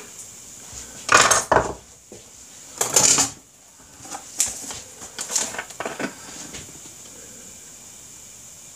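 A kitchen knife scraping chopped mushrooms off a wooden cutting board into a frying pan. There are two loud bursts of scraping and knocking, about one and three seconds in, then a few lighter knocks.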